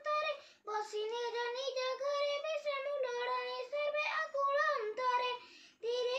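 A boy singing in a high voice, holding long notes. He breaks off briefly about half a second in and again near the end.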